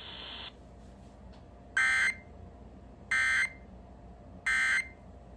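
Emergency Alert System end-of-message signal: three short, identical screechy digital data bursts, a little over a second apart, marking the close of the severe thunderstorm warning broadcast.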